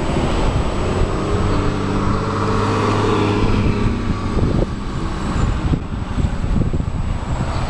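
A motor vehicle's engine hum swells and fades, as if it passes by, over a low wind rumble on the microphone, with a few light knocks later on.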